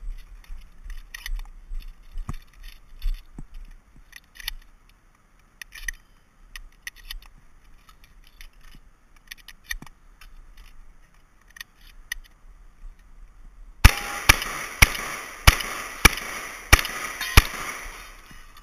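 Scattered light clicks and clatter, then about three-quarters of the way through a rapid string of seven shotgun shots, roughly two-thirds of a second apart.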